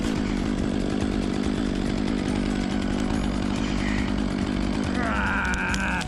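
Top-handle chainsaw running steadily at an even pitch and level.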